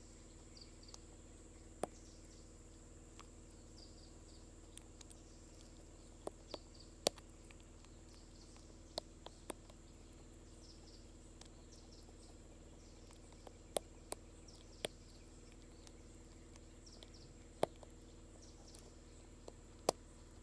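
Baby brush-tailed porcupine suckling at a feeding-bottle nipple: faint, irregular sharp clicks and smacks, over a steady low hum and a steady high whine.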